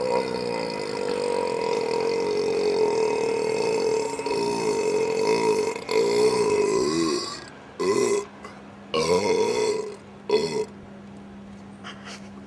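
A kid burping up the gas from two cans of Coke: one long, drawn-out, wavering burp, then two more long ones. After them come three short burps about a second apart.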